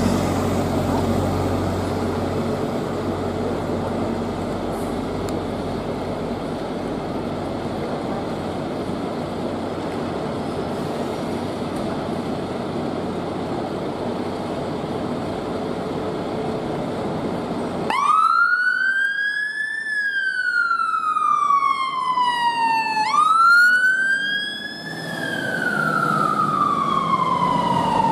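Low, steady engine and street rumble at first. About eighteen seconds in, the London Fire Brigade Mercedes Atego pump ladder's siren starts suddenly, a slow wail rising and falling, broken briefly in the middle by a quick run of short rapid sweeps before the slow wail resumes.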